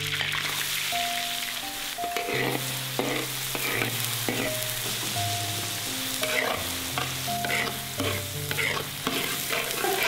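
Minced garlic sizzling in hot oil in a large iron wok, stirred and scraped with a metal spatula.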